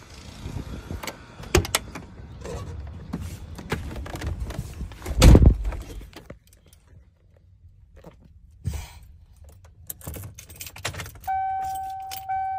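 Keys jangling and clicks of a pickup truck's door and handle as someone gets into the cab, with a heavy thump about five seconds in. Near the end the 1995 Ford F-250's dashboard warning chime starts, dinging about once a second.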